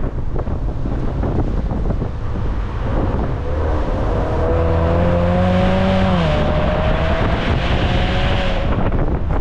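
Car engine pulling under acceleration over wind buffeting and road rumble: from about three seconds in its note climbs steadily, drops sharply a little after six seconds, climbs again, then fades back into the wind noise near the end.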